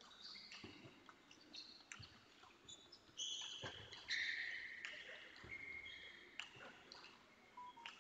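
Table tennis rally: the celluloid-type ball clicking off bats and table about once a second, with rubber-soled shoes squeaking briefly and high on the hall floor as the players move.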